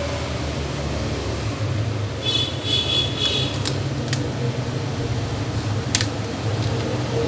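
Steady low mechanical hum like a fan, with a short high-pitched chirp about two seconds in and a few sharp clicks.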